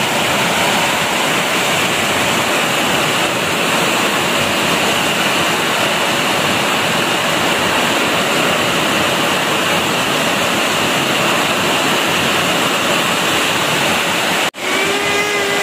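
Heavy rain pouring steadily on trees and ground, a dense, even hiss. The sound cuts out for an instant near the end.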